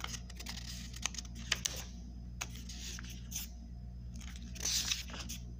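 Thin paper pages of a thick dictionary being turned by hand: irregular rustles and crisp flicks, with the loudest page flip about four and a half seconds in, over a faint low steady hum.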